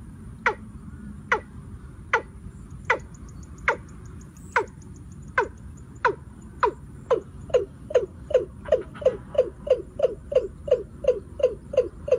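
Watercock calling: a series of hollow, slightly falling notes that starts at about one a second and speeds up steadily, reaching about two and a half a second in the second half.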